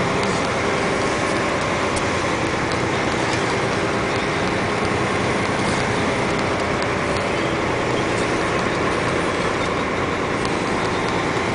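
Dump truck driving at steady speed, its diesel engine running with road and tyre noise and no change in pace.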